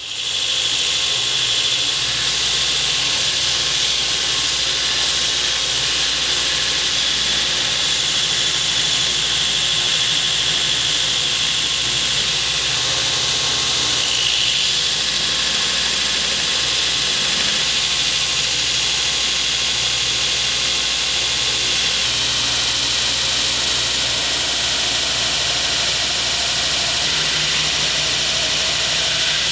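A 2x72 belt grinder running steadily, grinding the profile of a forged 80CrV2 steel knife blade.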